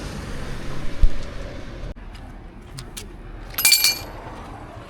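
Metal car tools clinking and rattling as they are handled, with a dull thump about a second in and a bright, ringing metallic clatter near the end.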